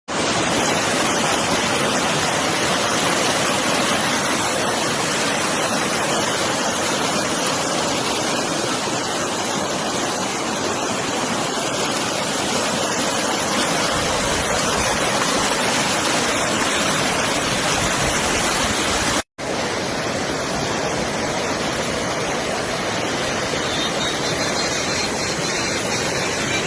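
A swollen river rushing: a steady, loud roar of turbulent water, broken only by a split-second dropout about two-thirds of the way through.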